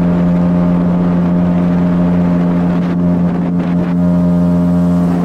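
Outboard motor pushing an inflatable boat along at a steady cruising speed: a loud, even hum that holds one pitch throughout.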